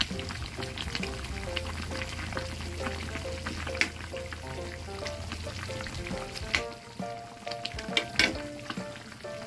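Vegetable soup bubbling in a pot over light background music, with a utensil clinking against the pot three times as salt is stirred in.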